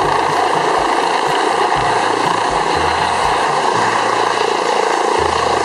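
A turbine helicopter with a shrouded fenestron tail rotor running at full power in a low hover: a loud, steady rotor and turbine noise, with a music bass line faintly underneath.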